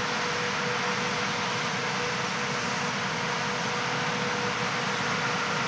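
John Deere 8R-series tractor pulling an Amadas 2110 peanut combine through the field, the engine and the combine's threshing machinery running steadily with a constant hum.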